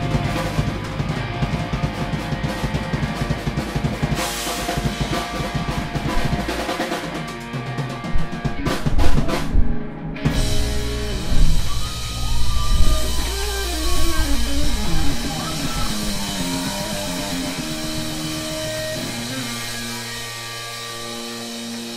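Live rock band playing loud: electric guitars, bass guitar and drum kit. About ten seconds in, the drumming gives way to a gliding, bending lead line over held bass notes.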